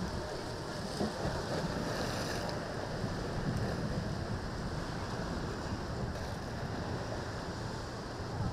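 Choppy surf washing and churning, with wind buffeting the microphone.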